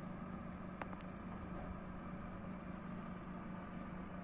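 Electric oven running with a steady low hum. Two faint ticks come about a second in.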